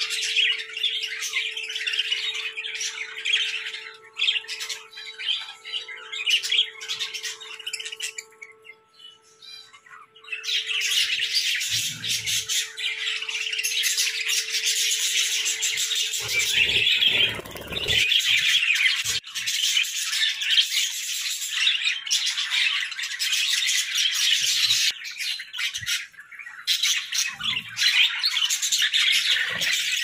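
Budgerigars chattering and squawking in a dense, continuous stream of calls, with a brief lull about nine seconds in.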